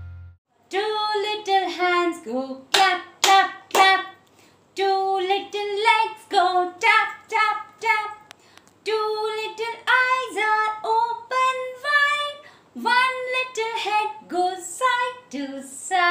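A woman singing a lively song in short phrases, with sharp hand claps between some of the lines.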